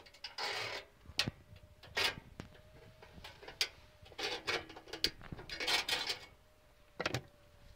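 Lighting a campervan's gas hob: sharp clicks of a lighter sparking at a burner, several times over, among short bursts of hissing gas.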